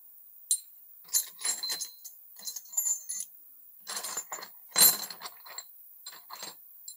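Small metal valvetrain parts (rocker arms, fulcrums and bolts) clinking and rattling together as they are handled, in a string of short clinks with the loudest just under five seconds in.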